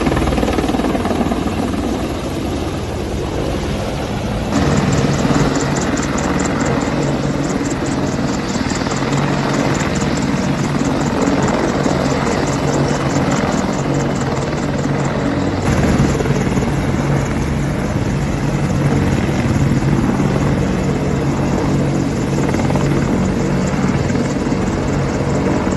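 AH-64 Apache helicopters running, their rotors and twin turboshaft engines making a loud, steady drone. The sound shifts abruptly about four and a half seconds in and again past the middle.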